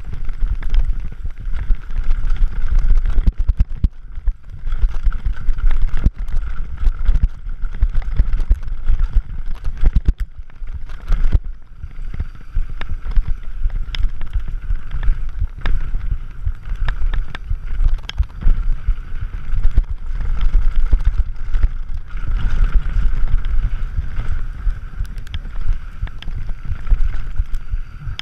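Scott Gambler 720 downhill mountain bike running fast over a rough dirt trail: a continuous tyre and wind rumble on the camera microphone, with frequent rattles, clicks and knocks from the bike over the bumps.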